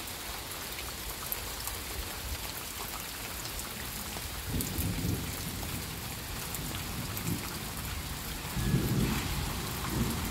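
Steady heavy rain falling, with low rumbles of thunder rolling in about four and a half seconds in and again near the end.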